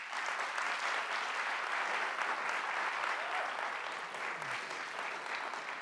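Audience applauding: many hands clapping, steady and even.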